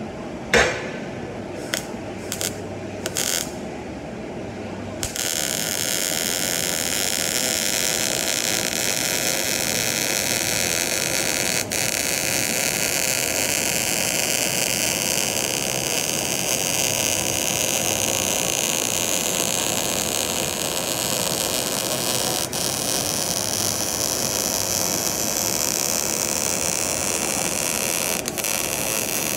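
Wire-feed (MIG) welding arc: a few short bursts in the first few seconds, then the arc burning steadily from about five seconds in, with a few momentary breaks.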